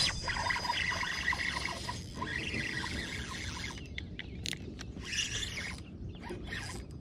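A fishing reel whirring as the line goes out on a cast and is cranked back in, with a few light clicks about four seconds in.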